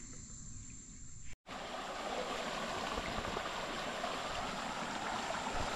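Water rushing steadily out through a freshly dug cut in a beaver dam, draining a flooded field. It comes in abruptly about one and a half seconds in, after a brief dropout, replacing a quieter outdoor background.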